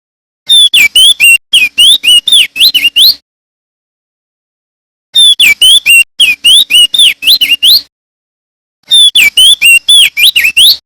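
Male opior jambul (crested white-eye) singing: three bursts of rapid, loud whistled notes that swoop down and up, each burst lasting two to three seconds with short silent gaps between.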